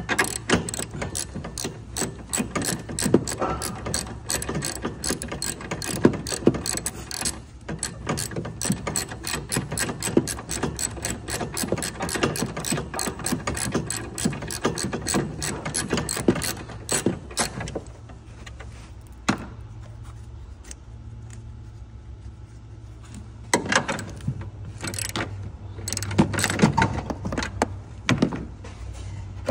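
Hand ratchet wrench clicking in quick, even runs while turning nuts on a car's suspension. Clicking goes steadily for a long stretch, stops for a few seconds, then comes back in shorter runs near the end.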